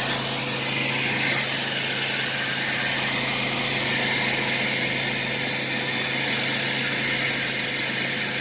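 Small Harbor Freight shop vacuum running at full suction with a steady rush of air, a high motor whine and a low hum, drawing dirt out of bedrock cracks.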